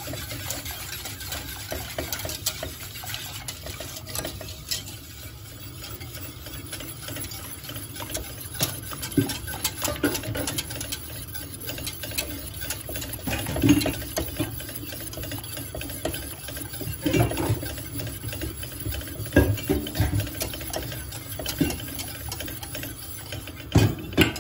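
Wire whisk scraping and rattling quickly against the bottom and sides of a stainless steel pot, stirring milk, starch and sugar continuously as it cooks into a custard so it won't lump. Now and then the whisk knocks louder against the pot.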